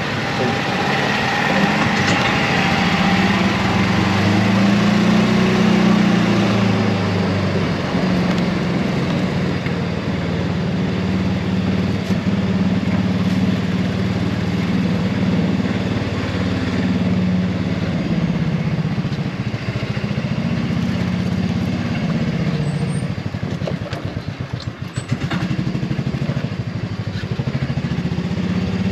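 A vehicle engine running steadily with a low drone, under a constant rushing noise, dipping briefly about three-quarters of the way through.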